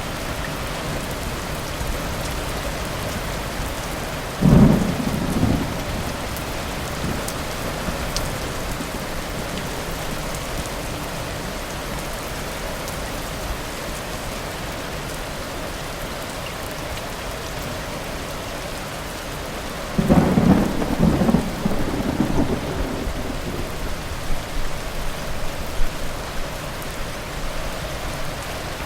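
Thunderstorm: steady rain falling, with two thunderclaps. A sudden sharp crack with a short rumble comes after about four and a half seconds, and a longer, crackling roll of thunder starts about two-thirds of the way through and dies away over several seconds.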